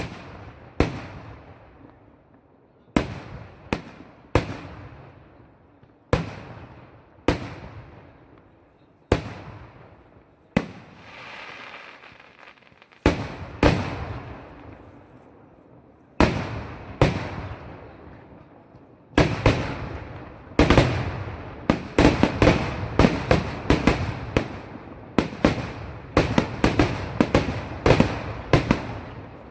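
Festival fireworks exploding: single loud bangs about every second or so, a hissing stretch about eleven seconds in, then from about twenty seconds a fast barrage of bangs, several a second.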